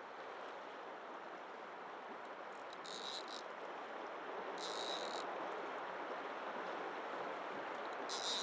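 Fast river current rushing steadily. Over it come three short, high-pitched buzzes from a fly reel's click drag as a hooked Atlantic salmon pulls line: about three seconds in, again near five seconds, and once more at the end.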